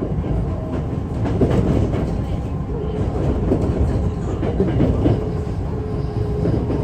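Electric commuter train running between stations, heard inside the car: a steady low rumble, with the wheels clacking over rail joints every now and then.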